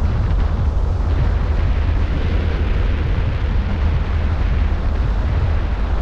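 Wind buffeting a microphone mounted on the outside of a moving car: a steady, heavy low rumble with rushing air and road noise.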